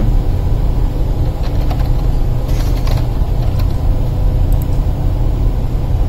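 Steady low rumble of shipboard machinery and ventilation in a cargo control room, with a faint constant hum above it.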